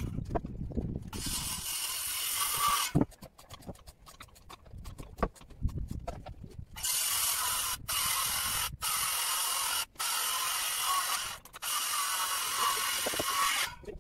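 Building-site tool noise: a run of rapid mechanical clicks, then several bursts of steady hiss, each a second or more long, that start and stop abruptly.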